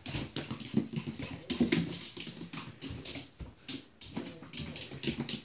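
Cairn terrier puppy making small whimpering vocal sounds while it plays, with a string of quick, irregular scuffles and clicks on a tiled floor.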